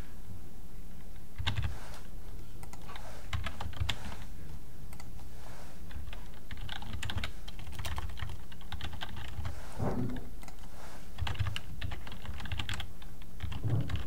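Computer keyboard typing in short bursts with brief pauses between them, over a steady low hum.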